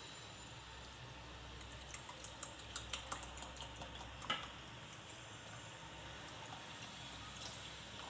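Milk pouring from a carton into a plastic mixing bowl of cream mixture, with a few light clicks and knocks in the middle.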